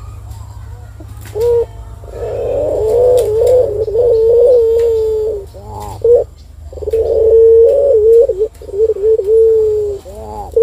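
Barbary dove (puter) cooing: a long, drawn-out low coo from about two seconds in, a few short rising notes around six seconds, then another long coo until near the end, closing on a short rising note. A faint low hum runs underneath.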